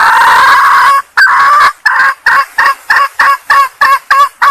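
Female junglefowl calling, a lure call for cock birds: one long drawn-out call, then a fast run of short clucking notes, about three a second.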